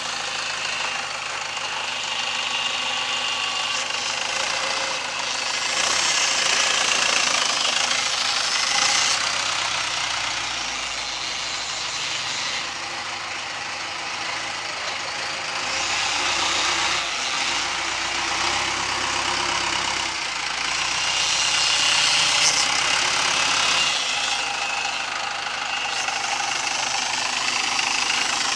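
Cummins 4BT four-cylinder turbodiesel in a Chevy pickup running as the truck drives slowly around, with a steady diesel clatter. It grows louder and quieter several times as the truck moves nearer and farther.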